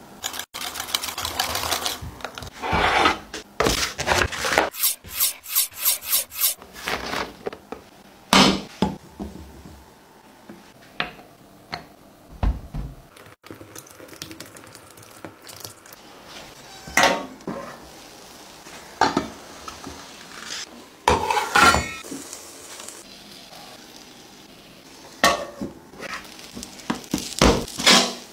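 A metal spoon stirring and scraping in a glass mixing bowl of beaten eggs, with a run of quick, even strokes for a couple of seconds. Then scattered short scrapes and clinks of kitchen utensils and dishes follow.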